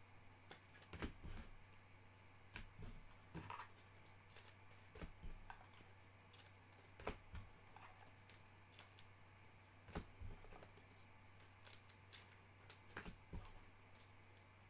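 Faint, irregular clicks and taps, a dozen or so scattered unevenly, over a low steady hum.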